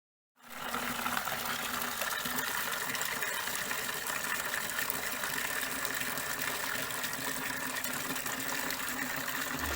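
Water running steadily from a tap, starting abruptly about half a second in.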